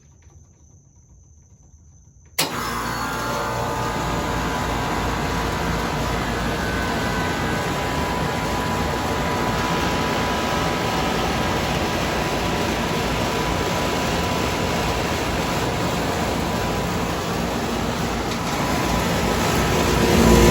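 1983 Whirlpool heat pump with its original Bristol reciprocating compressor starting up in cool mode, with the front panel off: near quiet for about two seconds, then a sharp click as it switches on and the unit runs with a steady mechanical hum. It grows louder near the end.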